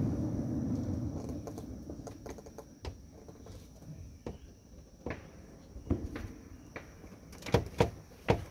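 The rumble of a fireworks burst dies away over the first second or so, followed by scattered sharp pops and cracks of distant fireworks, the loudest few near the end. A steady high insect trill runs underneath.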